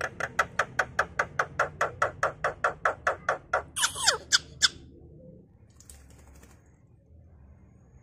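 Javan myna giving a fast run of short, repeated hiccup-like calls, about six a second, ending in a harsh squawk about four seconds in, then stopping. The uploader takes this for the myna choking while in full song.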